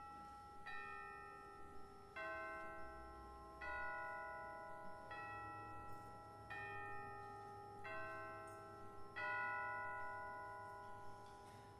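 Tubular bells (orchestral chimes) struck with hammers, sounding a ringing chord of a few notes about every one and a half seconds, seven strikes in all. Each chord is left to ring on and overlaps the next.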